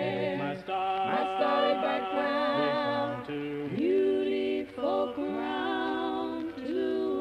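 Unaccompanied voices singing a hymn in harmony, several parts sounding together in long held notes with vibrato.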